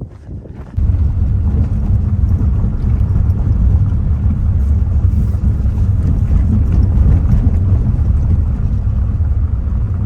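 Vehicle engine running: a loud, steady low rumble that starts suddenly about a second in.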